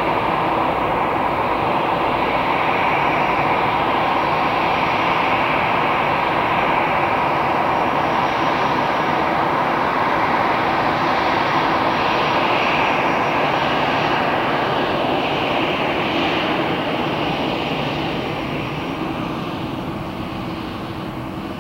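Jet airliner's engines running loud and steady, then fading away over the last few seconds.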